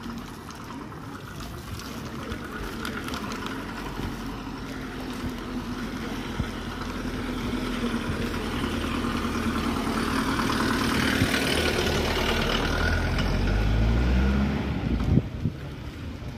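A car's engine growing louder as it drives up and passes close by. It rises in pitch near its loudest, then falls away suddenly about fifteen seconds in.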